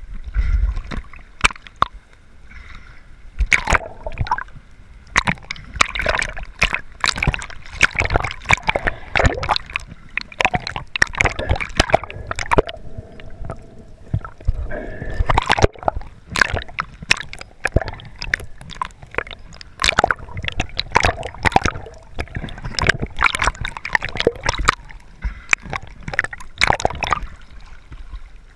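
Water splashing and gurgling around a camera carried by a snorkeler swimming at the surface, dipping in and out of the water, with irregular splashes all the way through.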